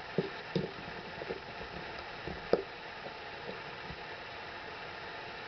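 A few light clicks and knocks of a screwdriver being handled against screws in a wooden board, the sharpest about two and a half seconds in, then only a steady faint hiss.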